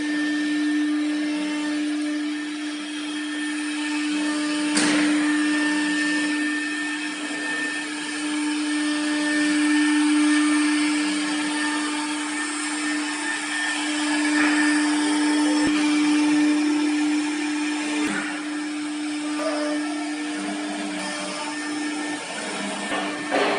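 FW1212 wood CNC router's spindle running steadily with a constant whine, with cutting noise from the bit working the wood. A sharp click about five seconds in and another around eighteen seconds.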